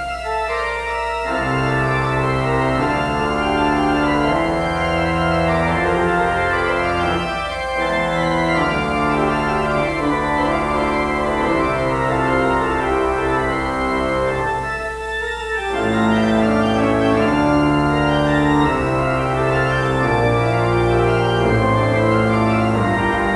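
Organ playing a postlude in sustained full chords, with short breaks between phrases right at the start, about 7 seconds in and about 15 seconds in.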